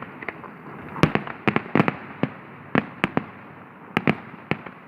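Fireworks display going off: an irregular series of about a dozen sharp bangs and cracks, some in quick pairs, over a steady background hiss.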